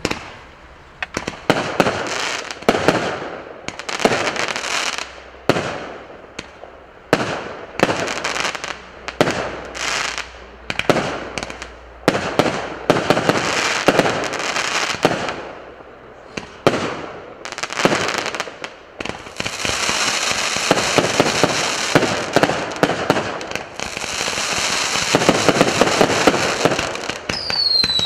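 A 96-shot, 0.8-inch firework battery firing: a rapid series of launches and bursting shells with crackle, growing into a dense, continuous crackle in the second half, with two whistles falling in pitch near the end.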